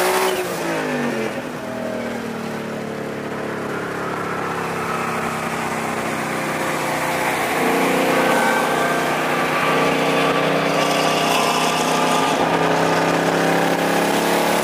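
High-horsepower V8 race cars, a twin-turbo Ford Mustang and a supercharged Chevrolet Corvette ZR1, accelerating side by side at full throttle in a roll race, heard from inside the Mustang. Engine pitch drops briefly at the start, then climbs slowly in a long pull, getting louder about eight seconds in.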